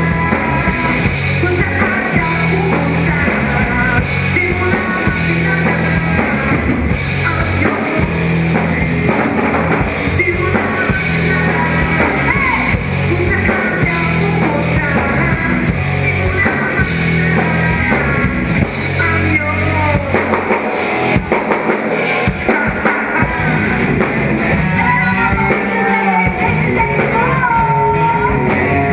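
A rock band playing live: drum kit, electric guitars and bass, with a voice singing at times.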